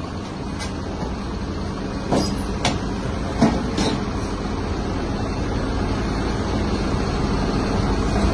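Hidromek HMK220 excavator's diesel engine and hydraulics running steadily while its VTN CI200 scrap shear works scrap steel. A few sharp metal clanks come from the shear and the scrap about two to four seconds in.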